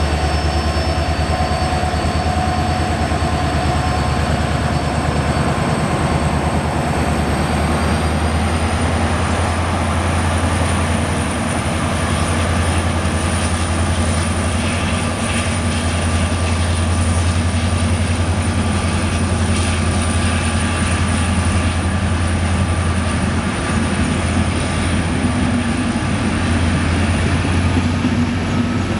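A WDP-4 (EMD GT46PAC) diesel-electric locomotive's turbocharged two-stroke engine runs under load with a steady low rumble as it pulls its passenger train past, and the coaches' wheels roll along the track. A thin high whine runs throughout and rises slightly in pitch about eight seconds in.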